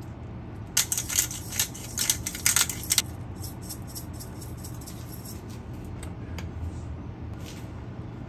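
A quick run of small metallic jingles and clicks about a second in, lasting about two seconds, over a steady low hum.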